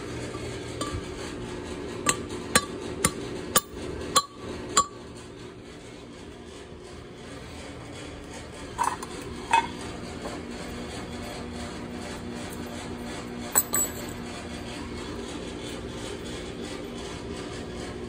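Metal tools and valve-train parts of a cylinder head being worked on: a run of six sharp metallic taps about half a second apart, then a few scattered clinks, over a steady background hum.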